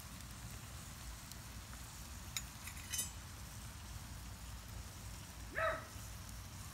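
Low steady hiss of a wood fire's glowing coals under a cast iron skillet, with two faint crackles a little before halfway. About five and a half seconds in, a dog gives a single short yelp that rises in pitch.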